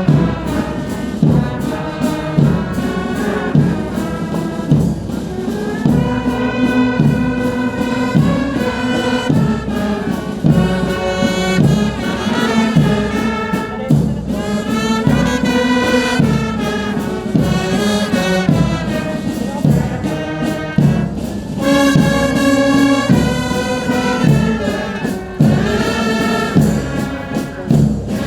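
Brass band playing a march, trumpets and trombones carrying the tune over a steady drum beat.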